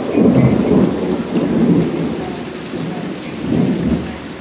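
Thunder rumbling over steady rain, swelling in several rolls and dying away near the end.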